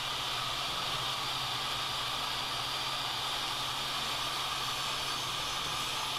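Jobsite table saw running steadily while a pine strip is ripped: an even whirring hiss that does not rise or fall.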